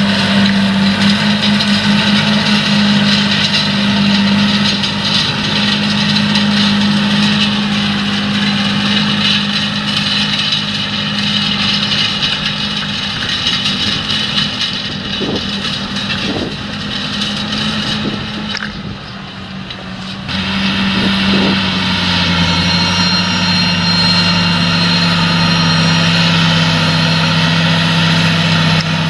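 John Deere 8345R tractor's six-cylinder diesel engine running steadily under load as it pulls a disc cultivator through stubble. Its note dips briefly in loudness about two-thirds through, then settles slightly lower in pitch.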